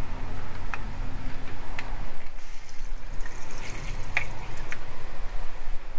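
Tap water running from a kitchen faucet into a bowl of rice as the rice is rinsed, with a few light clicks along the way.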